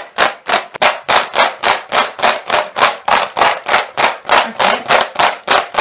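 Plastic toy figures clattering against each other and the posts of a small hand-held toy wrestling ring as it is shaken hard back and forth, about five rattles a second.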